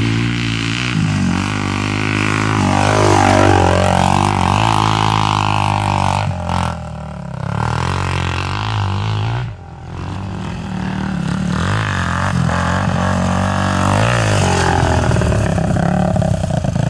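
Dirt bike engines revving hard under load on a hill climb, the pitch rising and falling with the throttle. The sound drops out briefly twice near the middle.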